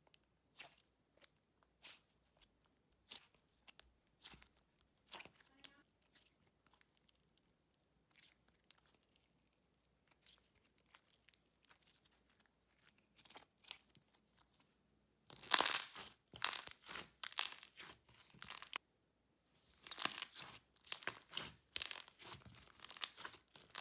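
Thick, glossy slime being squished, poked and stretched by hand, making crackly pops and clicks. The pops are scattered and soft at first, go almost quiet, then come in dense crackling runs over the last third.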